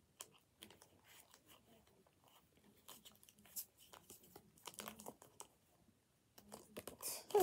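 Faint scattered clicks and rustles of small handling noises close to the microphone.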